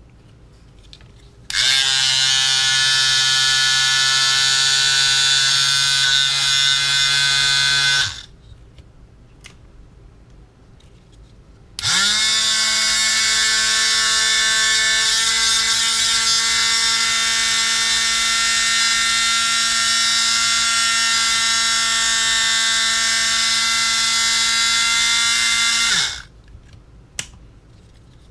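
Small electric motor whining at a steady speed, run twice: a lower-pitched run of about six seconds, then after a pause a higher-pitched run of about fourteen seconds that starts with a quick rising spin-up and stops abruptly.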